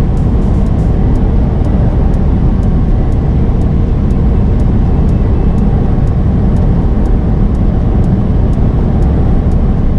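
Steady drone of a semi truck driving on the highway, heard from the cab: engine and road noise heaviest in the low end, with faint regular ticking about twice a second.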